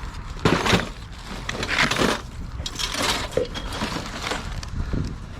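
Curbside junk, plumbing odds and ends, being picked through and handled: a series of knocks, scrapes and clatters, the loudest about half a second in.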